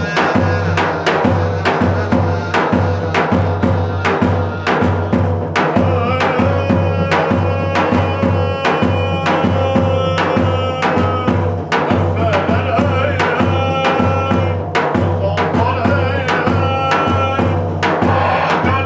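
Turkish folk music: a steady, regular drumbeat, about two strikes a second, under a held melody line that slides between notes.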